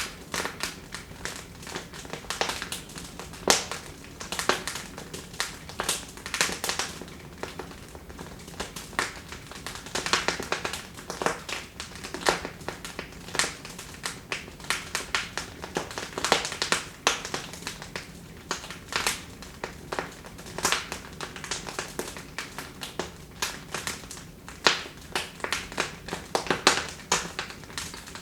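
Wood fire in a fireplace crackling, with frequent sharp irregular pops and snaps over a low steady hiss.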